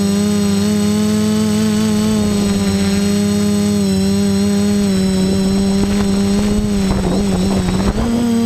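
Quadcopter's electric motors and propellers whining steadily in flight, the pitch wavering slightly with throttle. A rough, rattling patch comes about seven seconds in, and the pitch steps up just after it.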